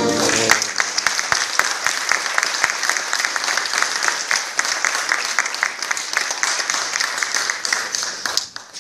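Audience applauding as the orchestra's last chord dies away, the clapping dense and even, then falling off near the end.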